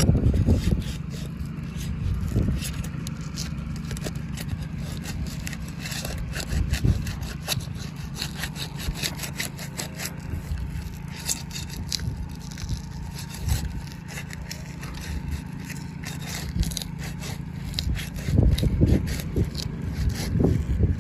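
Roof shingles being worked loose and pried up: a run of irregular scraping and crackling strokes over a steady low rumble.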